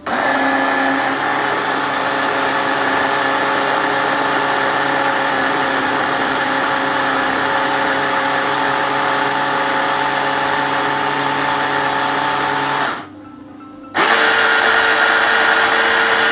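Hand blender running steadily, blending old ginger with a little water into a paste. The motor stops for about a second near the end, then starts up again.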